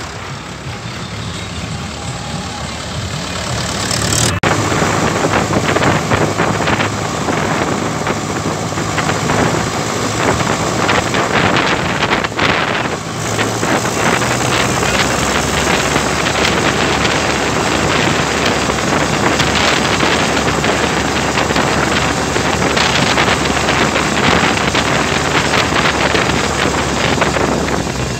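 Tractor's diesel engine running steadily under way, close to the microphone, with wind noise on the mic. Quieter for about the first four seconds, then steps up suddenly to the close, loud engine.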